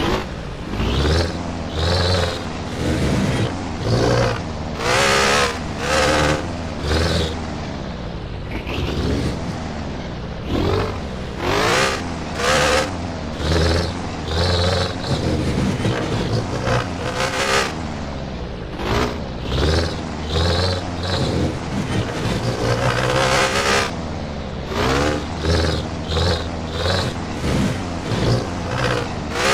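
Sarao jeepney's diesel engine revved through a Lamigo muffler in quick repeated blips, each rising and falling in pitch, about one a second, with a few calmer stretches near idle between runs of blips.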